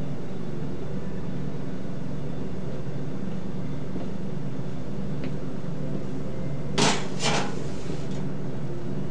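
Stacked metal pans clattering twice, a short sharp clank about seven seconds in and another half a second later, as they are set down on a shelf. A steady low hum runs underneath.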